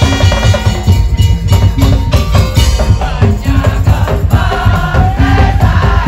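Madurese daul (tong-tong) music played loud by a float ensemble: dense, driving drumming and percussion over a heavy bass, with a pitched melody line on top.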